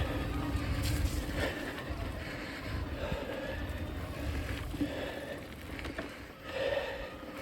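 Mountain bike being ridden along a dirt trail: a steady low wind rumble on the microphone, with tyres and frame rattling over the ground.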